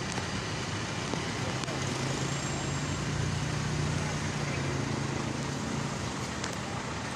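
Roadside traffic noise with a steady low engine hum that swells for a couple of seconds in the middle.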